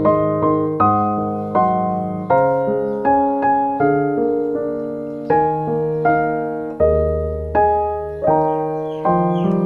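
Background piano music: a slow, gentle melody of struck notes, each fading before the next.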